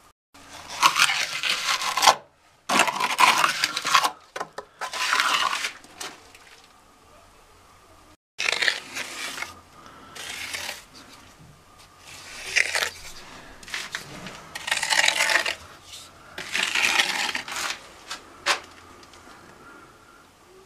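Trowel scraping wet mortar into the concrete reveal around a PVC window frame: about eight gritty scraping strokes, each around a second long with short pauses between, and a few sharp clicks near the end.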